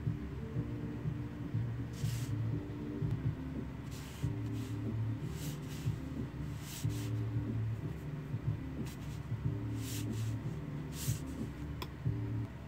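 Flat watercolor brush swishing across paper in short strokes, about ten brief, irregularly spaced hissing swishes. Soft background music with held low notes plays underneath.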